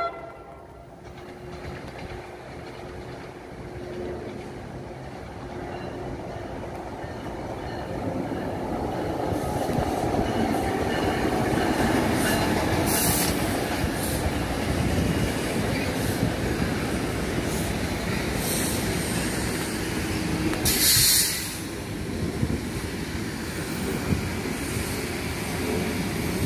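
NJ Transit locomotive-hauled train passing on the rails: its rumble and wheel noise grow louder over the first several seconds and then hold steady as the coaches go by. A short, high hissing burst stands out about three-quarters of the way through.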